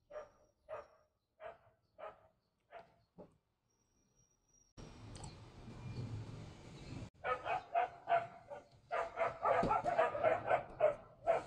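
A dog barking: six short barks a little over half a second apart, a pause, then a faster, denser run of barks near the end.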